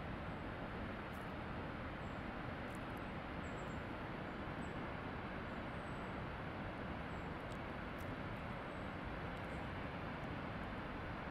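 Steady rushing noise of a tall waterfall, an even, unbroken wash of falling water with no pauses. A few faint high chirps sound over it.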